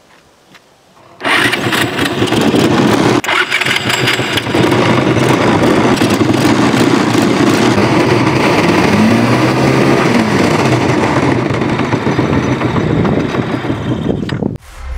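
Motorcycle engine in a homemade boat starting up about a second in and running steadily, driving the propeller shaft, with the revs rising once past the middle. It cuts off suddenly near the end.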